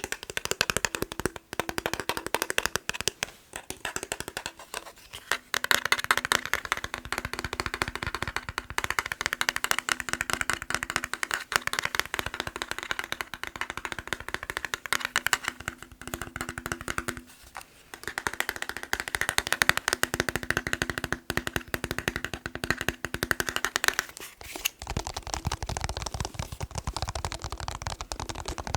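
Fast tapping on a plastic TV remote: a dense, rapid patter of small clicks with brief pauses. Near the end, a low rumble of handling comes in under the taps.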